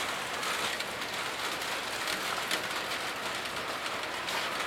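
Heavy rain pouring steadily: a dense, even hiss made of countless close drop impacts.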